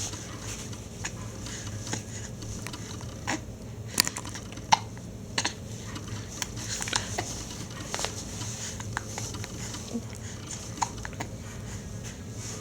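A young baby hiccupping: several short, sharp hiccups at irregular intervals, three in quick succession about four seconds in.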